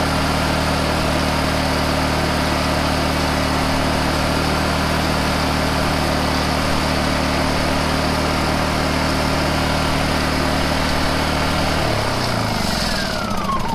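Honda EU2000i inverter generator's small single-cylinder four-stroke engine running at a high, steady speed with its cover off. Near the end its pitch falls away as it winds down.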